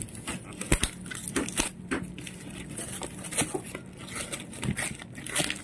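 Packaging crackling and crinkling in an irregular run of sharp crackles as a sealed live-fish shipping package is opened by hand.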